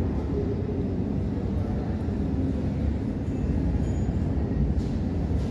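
Steady low rumble of airport apron traffic: vehicle engines and ground equipment running around a parked airliner.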